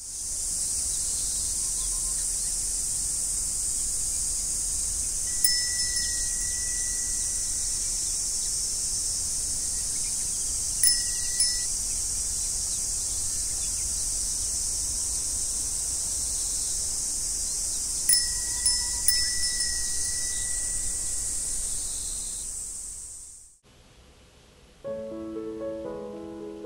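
A wind chime ringing a few clear single notes, about five, eleven and eighteen seconds in, over a steady high-pitched hiss that fades out near the end. Soft piano music then starts.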